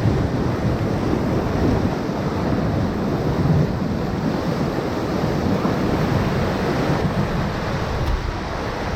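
Whitewater rapids rushing around a raft, a steady loud roar of churning river water, with wind buffeting the microphone.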